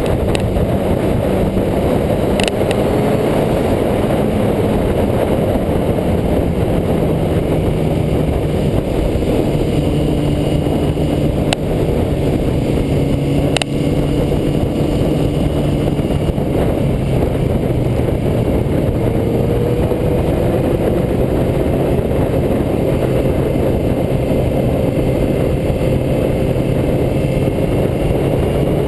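Sportbike engine running under way, its pitch slowly rising and falling as the rider rolls on and off the throttle through the curves, under a heavy steady rush of wind and road noise on the bike-mounted camera.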